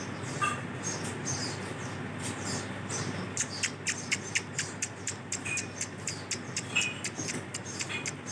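Male ring-necked parakeet making a rapid series of short, high clicks and squeaks, which grow denser about three seconds in, with a couple of brief high chirps.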